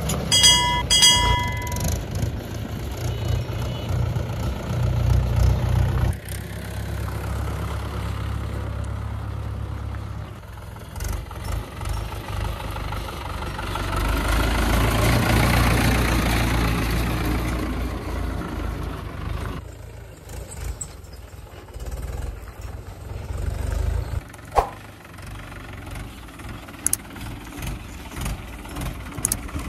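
Mahindra 575 DI tractor's four-cylinder diesel engine running as the tractor works a field with a rear cultivator. It grows louder for a few seconds near the middle.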